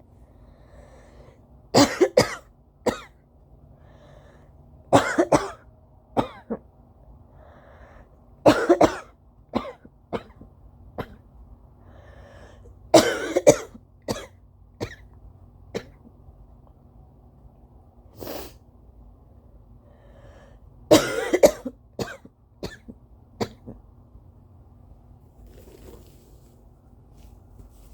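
A person's dry allergy coughing fit. It comes in bouts of two or three sharp coughs every few seconds, with single smaller coughs and soft breaths between bouts.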